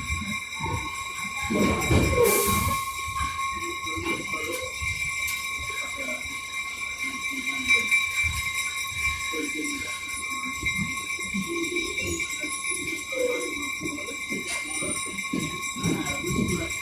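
Running noise of a vintage passenger train heard from aboard, with a steady high-pitched whine throughout and background chatter of passengers. A brief hiss sounds about two seconds in.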